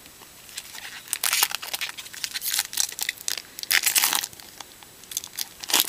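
Foil wrapper of a jumbo pack of 2013 Topps baseball cards being torn open and crinkled in the hands, in several short bursts of rustling with quiet gaps between.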